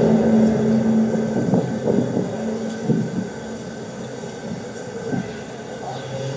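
Low, steady droning tone with overtones, a synthesized 'sky trumpet' strange sound. It thins out in the middle with a few brief sweeping sounds, then swells again near the end.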